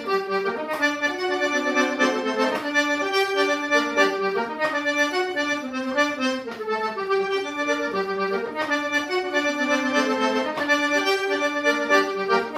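Accordion playing an instrumental forró break: a quick melody of short notes over a steady percussion beat.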